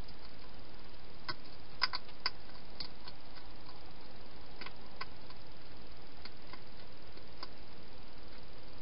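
A hedgehog eating at its bowl inside a plastic feeding box: irregular small crisp clicks, a few together about two seconds in, then sparser ones, over a steady hiss.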